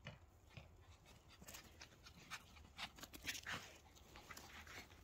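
A small dog panting faintly in quick, uneven clusters of breaths.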